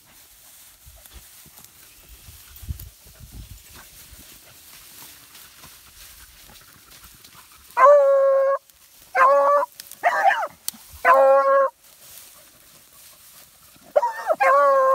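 Hunting hound baying on a scent trail: a run of long, drawn-out bawls, four about a second apart starting halfway through, then another near the end.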